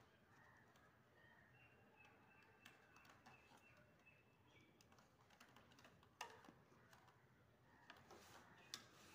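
Near silence, with faint small clicks and taps of a small screwdriver working the screws of a ceiling fan's wire terminal block, and a sharper click about six seconds in and again near the end.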